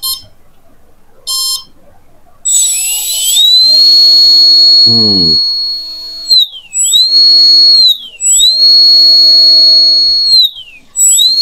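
Brushless drone motor driven through an ESC by a servo tester, run off a 3-cell drone battery pack with one cell replaced by a phone battery. Short ESC beeps come first. About two and a half seconds in the motor spins up to a high, steady whine, then dips in pitch and climbs back three times as its speed is wound down and up again.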